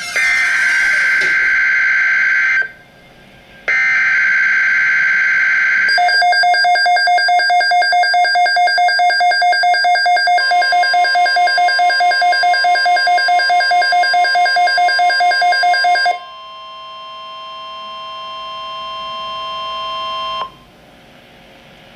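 Emergency Alert System tones on NOAA Weather Radio. First come the last two bursts of the SAME digital header, each a harsh buzzing data screech about two seconds long, with a second's gap between them. Then a rapidly pulsing alarm beep sounds, about four to five pulses a second; partway through, a steady weather alert tone joins it and carries on alone for several seconds after the pulsing stops.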